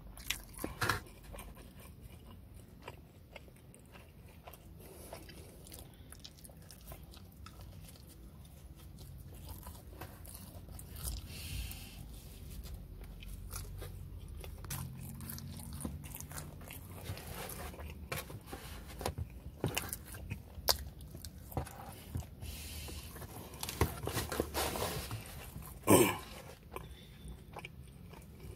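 Close-up eating of pepperoni pizza: biting and chewing, with many short wet mouth clicks and a few louder bites.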